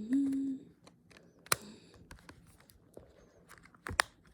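A brief hummed note, then a few sharp plastic clicks and taps from phones being handled, as batteries and back covers are fitted. The loudest are a pair of clicks near the end.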